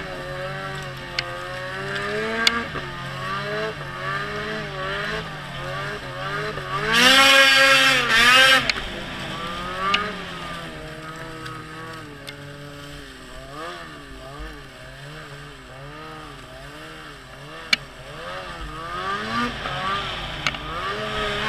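Ski-Doo Summit Burton 800 E-TEC snowmobile's two-stroke twin engine running under way, its pitch rising and falling with the throttle. It gives one loud, hard rev lasting over a second about seven seconds in. A few sharp knocks are heard along the way.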